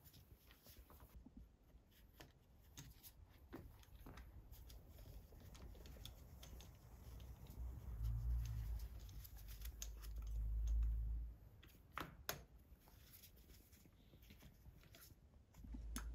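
Faint scattered clicks and rubbing as gloved hands push fuel injectors into the intake runners and fuel rail, with a low rumble about 8 to 11 seconds in and two sharper clicks about 12 seconds in.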